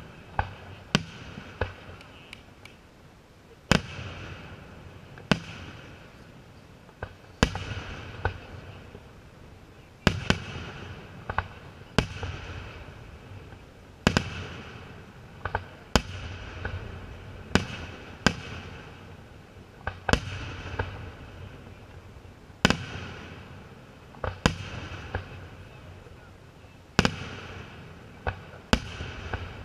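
Aerial firework shells bursting in the sky one after another: sharp bangs about every one to two seconds, each with a fading rumble and crackle after it.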